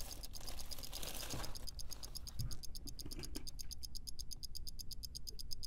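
Rapid, even ticking, about ten ticks a second, laid over the picture as a sound effect.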